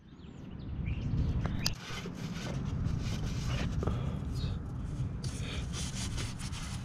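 Rubbing and light scraping with scattered small clicks from a gloved hand working around the oil filter housing of a Mercedes diesel engine.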